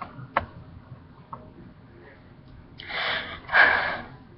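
A person's two loud breaths through the nose and mouth about three seconds in, the second louder and longer, after a few faint clicks.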